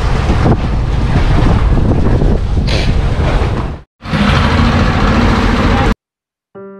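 Loud steady noise on a fishing boat's deck: an engine running and wind buffeting the microphone, broken by a short cut just before four seconds in. It stops shortly before the end, and soft piano music begins.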